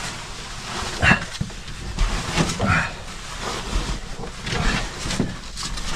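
A caver's short, strained groans and breaths while squeezing through a tight rock crawl, with the rustle and scrape of clothing and gear against the rock.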